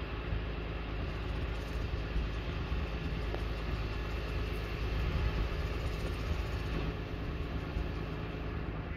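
A heavy engine idling steadily with a low, even hum.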